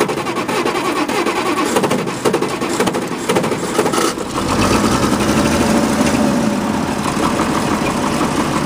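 Old diesel tractor engine started cold without glow-plug preheat, cranking and firing roughly before settling into a steady run about four seconds in. It was a little harder to start than usual, but it started.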